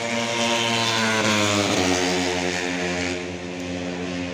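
Racing motorcycle engine running at high revs as it goes past on the track, its pitch dropping about two seconds in, then fading a little.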